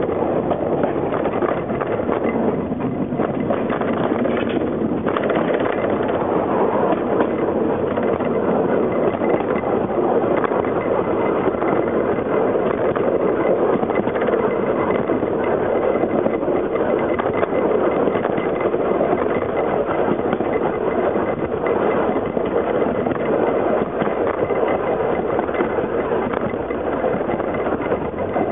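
Narrow-gauge passenger train running along the track, heard from the rear of the train: a steady running noise of wheels on rails and the moving carriage.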